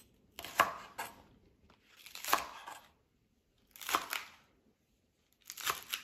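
Chef's knife slicing through a bundle of green onion stalks on a cutting board: four separate cuts, evenly spaced a little under two seconds apart.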